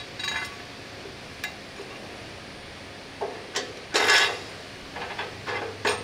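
Metal parts knocking and clinking together as steel suspension components are handled and fitted during assembly: a few separate sharp knocks, the loudest cluster about four seconds in, over a low workshop hum.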